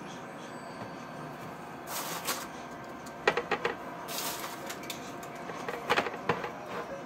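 Baked pretzel rolls being moved off a baking tray onto a wire cooling rack with a silicone spatula and an oven mitt: short rustles, with small clusters of light clicks and clacks against the metal about three seconds in and again near the end.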